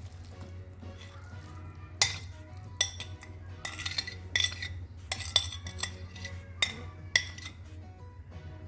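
A metal utensil clinking against cookware as food is stirred: about seven sharp, ringing clinks at an uneven pace, with background music running underneath.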